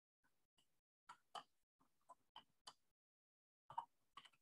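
Faint computer keyboard keystrokes: a handful of short, scattered clicks amid near silence.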